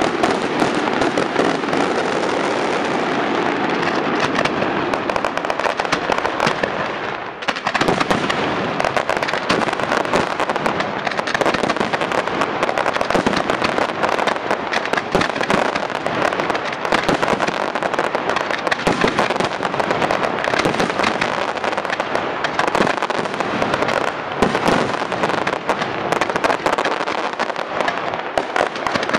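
Daytime fireworks barrage: a dense, continuous rattle of firecracker bangs and crackling aerial bursts, with a brief lull about seven seconds in.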